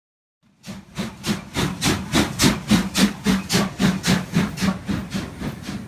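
Steam locomotive exhaust chuffing in a steady rhythm of about four beats a second. It grows louder to a peak about three seconds in, then fades.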